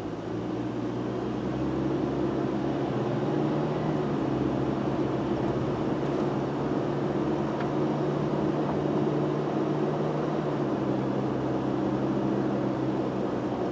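Car engine and road noise heard from inside the cabin as the car pulls away from a standstill and drives on: a steady engine hum over tyre hiss that gets louder right at the start. The engine's tone steps down slightly about ten seconds in.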